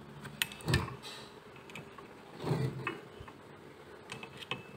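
Metal clicks and knocks as a hex key is fitted into and worked against the blade arbor bolt of a Total cordless circular saw: sharp clicks near the start, a heavier knock about halfway, and a few more clicks near the end.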